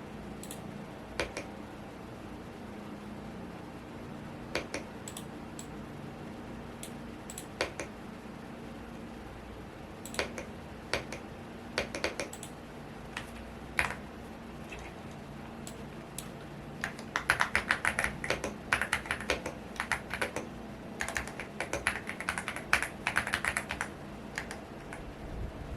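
Typing on a Womier S-K71 mechanical keyboard: scattered single keystrokes at first, then a fast, dense run of typing from about two-thirds of the way through. A fan hums steadily underneath.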